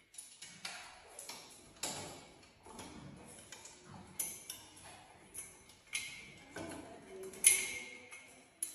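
Metal baby gate rattling and clicking irregularly as a cat climbs it and a dog jumps up against it, with a few sharper metallic knocks, the loudest near the end.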